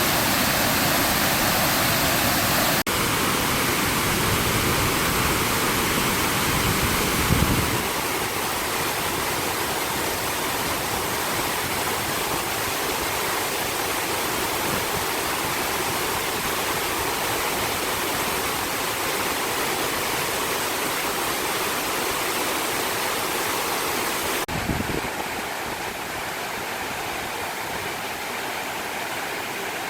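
Waterfall: steady rushing of falling water. The sound changes abruptly twice, about three seconds in and near the end, with two brief low bumps along the way.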